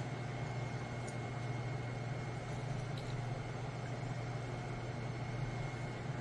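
Steady low machine hum with an even background hiss, unchanging throughout, with a couple of faint small ticks.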